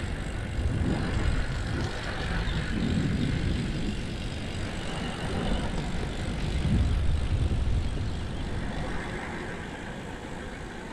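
Wind rushing over the microphone of a camera on a moving bicycle, a noisy rumble with no clear tone that swells and eases, loudest about seven seconds in and dropping off toward the end.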